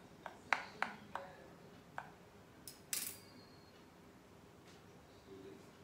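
Metal fork pricking rolled dough on a rolling board: about five sharp taps in the first two seconds as the tines click against the board, then a brief louder clatter about three seconds in.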